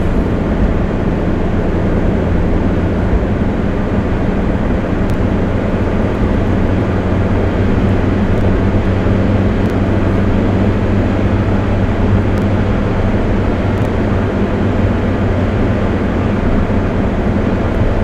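Steady engine drone and tyre road noise heard from inside a moving car.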